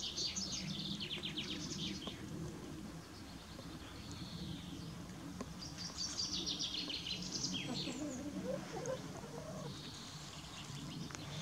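Small birds singing: bursts of high, fast trills every few seconds, over a steady low hum.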